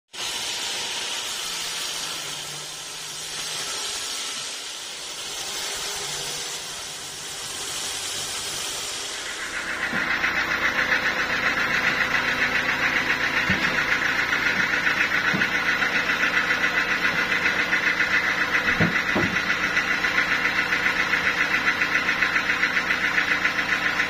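Homemade band sawmill at work on a teak log: first a wavering, hissing rasp as the blade runs through the wood. About ten seconds in, the sound changes to a louder, steady whine with a fast, even pulse as the saw runs on, with a few short wooden knocks while the slabs are handled.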